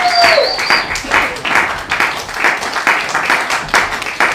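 Audience applauding, with a whoop right at the start; the clapping thins out toward the end.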